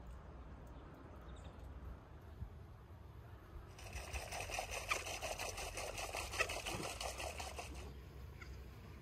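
Insects buzzing in a dense, rapidly pulsing drone that starts abruptly about four seconds in and stops just as suddenly about four seconds later, over faint outdoor ambience with a few soft bird chirps early on.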